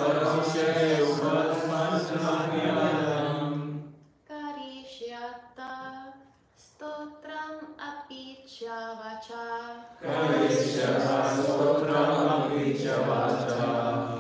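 Call-and-response chanting of a Sanskrit verse. A group chants a line in unison, then a single male voice chants the next phrase alone for about six seconds, and the group takes it up again.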